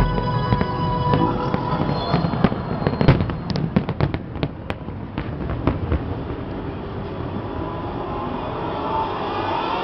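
Fireworks going off: a quick run of sharp bangs and crackles a couple of seconds in, thinning out by the middle. Music fades out in the first second, and a building hiss of noise follows near the end.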